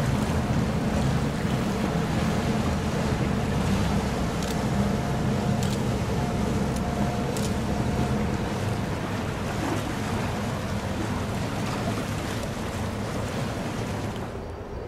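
Steady low rumble of the passing cruise ship Norwegian Breakaway's machinery, with water wash and wind noise, slowly easing off.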